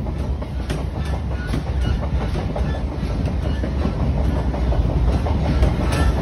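A passenger train running along the line, heard from inside the coach: a steady low rumble with scattered clicks of the wheels on the rails, growing slightly louder.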